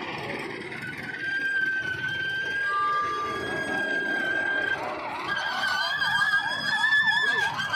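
Emergency vehicle sirens over road traffic noise. A long steady high siren tone holds for several seconds. About five seconds in, a fast repeating rising yelp, two to three sweeps a second, starts with a warbling tone over it.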